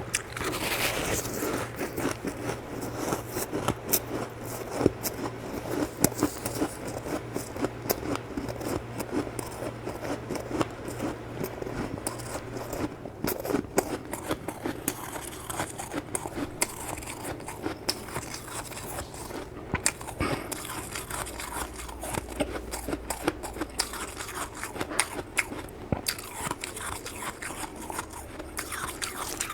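Close-up crunching of freezer frost being bitten and chewed: a dense, irregular run of sharp crackles and soft crunches.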